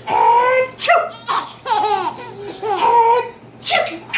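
Twin babies laughing hard in repeated high-pitched bursts, with two short fake sneezes from a man, about a second in and near the end.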